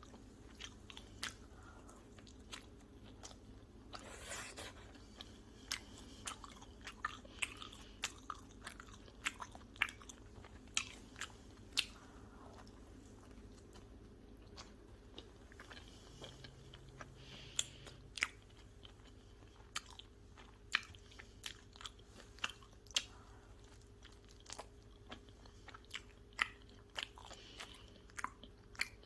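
Close-miked chewing and biting of pizza, with crisp, irregular crunches of the crust, roughly one or two a second.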